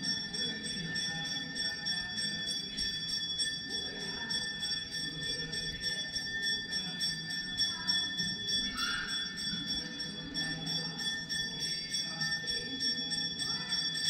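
Hindu temple bell rung continuously in fast, even strokes, about three or four a second, its ringing tones held steady throughout, over a low murmur of people.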